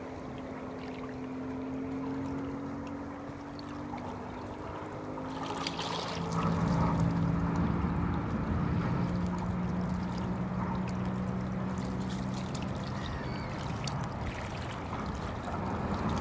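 Low, steady engine drone whose pitch sits a little lower from about six seconds in, over water lapping at a rocky shore.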